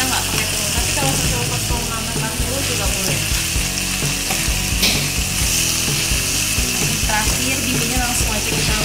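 Chicken, leafy greens and bean sprouts sizzling steadily in a hot wok as they are stir-fried, with a wooden spatula tossing and scraping through them.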